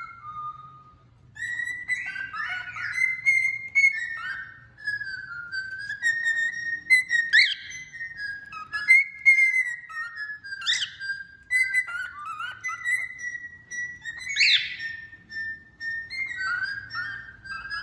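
Male cockatiel singing, a long run of warbling whistled notes beginning about a second in, broken three times by a sharp upward-sweeping squeak.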